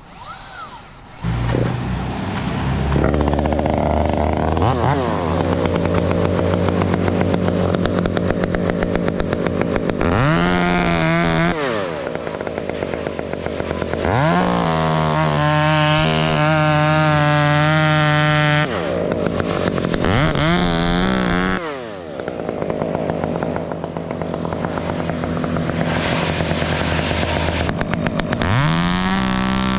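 Two-stroke chainsaw running: it comes up about a second in, idles, and is revved up to steady full throttle four times, each rise a quick climb in pitch.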